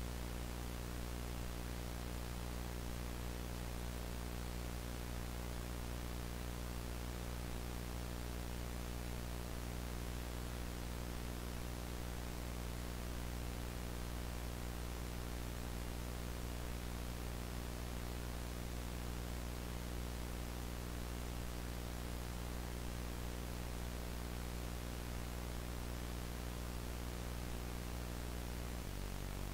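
A steady low hum with many overtones under a constant layer of static hiss; the hum's tone changes about a second before the end.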